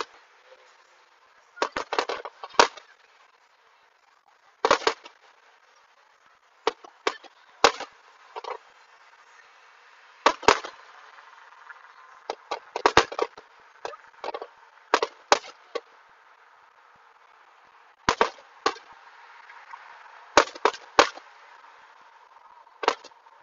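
Aerial firework shells bursting: a string of sharp bangs, some single and some in quick pairs or clusters, every one to three seconds.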